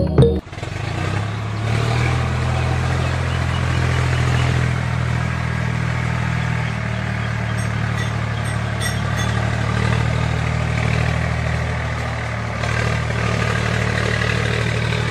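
Tractor engine running steadily at a low, even rumble, dipping a little near the end.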